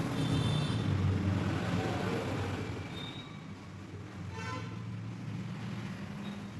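Steady low mechanical hum, like an engine or motor running, slowly growing fainter. A brief higher-pitched tone sounds about four and a half seconds in.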